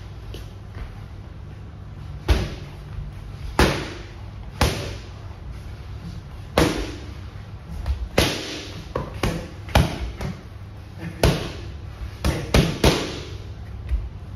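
Boxing gloves striking focus mitts: a series of sharp smacks at irregular intervals, about a dozen, with three landing in quick succession near the end.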